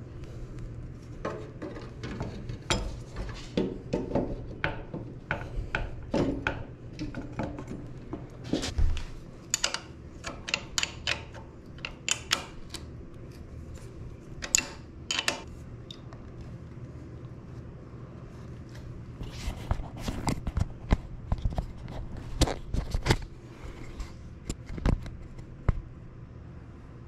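Irregular metallic clicks, clinks and knocks of bicycle parts and tools being handled: a steel chainring and an Allen key striking against the e-bike frame and motor mount, some sharp and loud. A low steady hum runs underneath.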